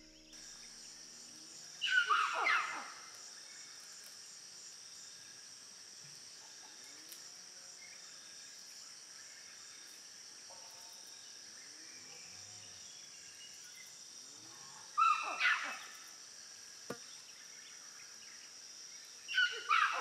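Tropical forest ambience: a steady high insect drone, broken by three loud animal calls of about a second each that fall in pitch, about two seconds in, about fifteen seconds in, and again near the end.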